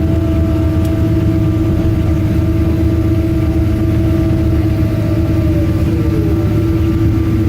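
Steady cabin noise of a Boeing 777-200 on the ground after landing: a low rumble from the jet engines and airflow with a strong steady hum. A higher tone glides downward about five and a half seconds in.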